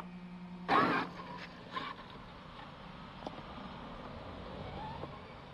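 Traxxas X-Maxx RC monster truck's brushless electric motor and tyres as the truck takes off across dirt and grass, with a loud rush about a second in, a smaller one shortly after, and then a faint motor whine rising near the end.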